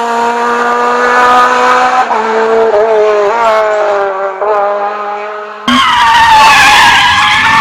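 Rally car engine running hard at high revs, its pitch holding fairly steady with small dips and jumps. A little over halfway through, the sound cuts suddenly to a louder passage of another car at speed, with a wavering, hissing tone.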